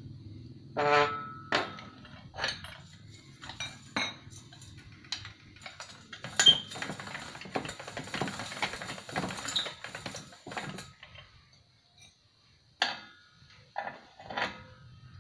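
Homemade hand-cranked sheet-metal slip roll being worked, with sheet metal being rolled through its steel rollers. Sharp metal clanks, the first one ringing, then a few seconds of continuous rattling in the middle and a few more clanks near the end.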